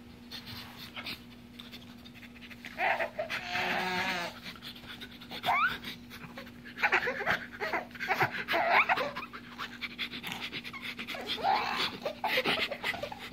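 Quick, exaggerated sniffing and snuffling in several bursts from a man nuzzling a baby's face. The baby giggles and squeals in between.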